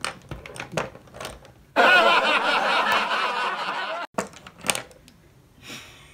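Loud laughter that starts abruptly about two seconds in and cuts off just as suddenly about two seconds later, as if edited in. Light clicks and taps come before and after it.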